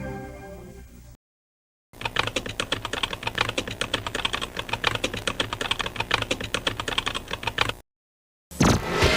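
Rapid, continuous keyboard typing used as a news sound effect, a dense run of clicks lasting about six seconds. Before it, music fades out at the start; after it, new music comes in near the end.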